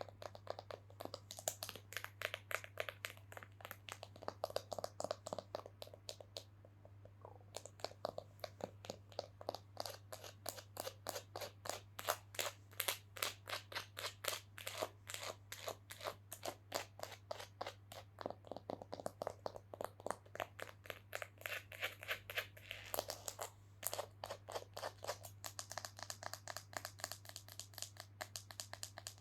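ASMR knocking: quick, light taps on an object, several a second in uneven runs, close to the microphone. A low steady electrical hum runs underneath.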